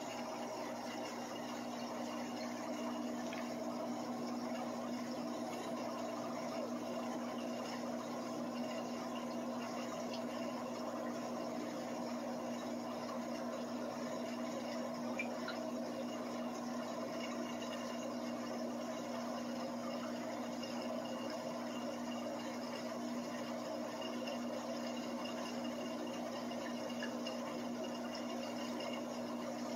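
Aquarium filter running: steady trickling and splashing of circulating water, with a low steady hum.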